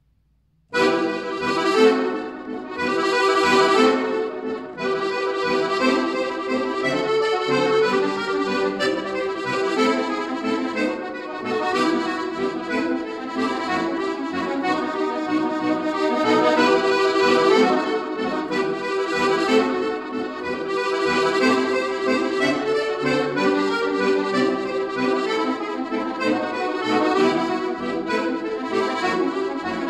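Solo Scandalli piano accordion: after a brief silence it comes in with a sudden loud chord about a second in, then plays on steadily with a busy melody over held chords.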